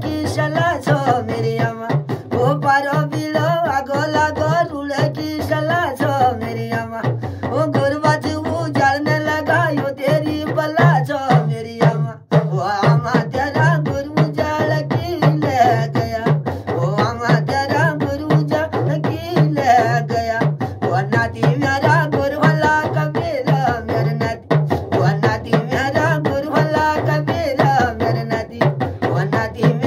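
A man sings a Kumaoni folk song while beating a hurka, the laced hourglass hand drum of Uttarakhand, in a steady rhythm, its strokes shifting between a lower and a higher pitch. The voice breaks off briefly about twelve seconds in.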